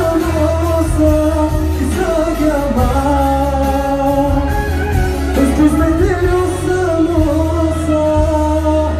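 A male singer singing a pop song live into a microphone over loud amplified music with a heavy, steady bass line.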